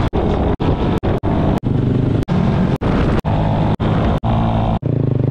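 Motorcycle engine running steadily at road speed, heard in a rapid string of short clips, the sound cutting out for an instant about every half second.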